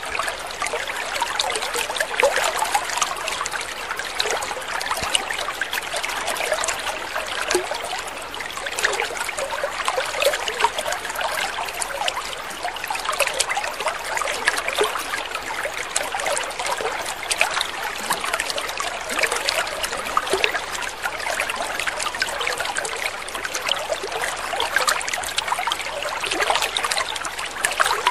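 Water trickling steadily, a continuous babble of many small splashes and drips.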